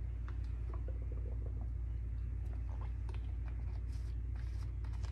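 A person taking a drink, with faint scattered small clicks and swallowing sounds over a steady low electrical hum.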